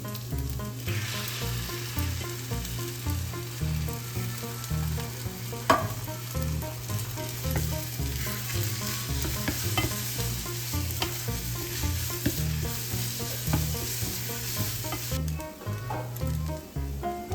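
Food sizzling as it fries in a pan while being stirred, with a few sharp clicks, the loudest about six seconds in. The sizzle fades near the end.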